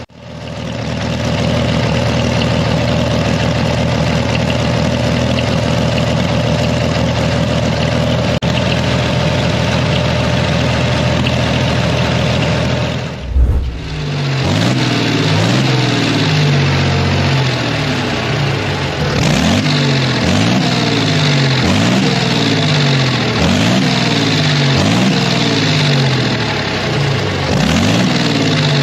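Deutz air-cooled, turbocharged 19.1-litre V12 diesel running steadily. About halfway through it is revved up and down over and over on the hand throttle, the pitch rising and falling about once a second.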